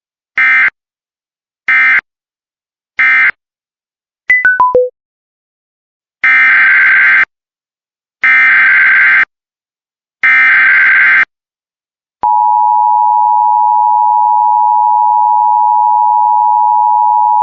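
Emergency Alert System signalling. Three short screeching SAME data bursts mark the end of the previous message, followed by four quick beeps stepping down in pitch. Then three longer, second-long SAME header bursts open the next alert, and from about twelve seconds in a loud, steady EAS attention tone sounds.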